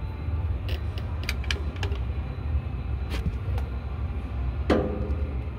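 Scattered sharp metallic clicks and one louder clank with a short ring near the end, from tools turning an International A26 diesel engine over by hand to bring the flywheel to its timing mark. A steady low rumble runs underneath.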